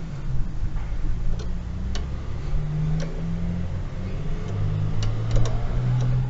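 A low engine-like drone that steps up and down in pitch, with several light metallic clicks of a spanner on the brake pedal's pivot nut and bolt.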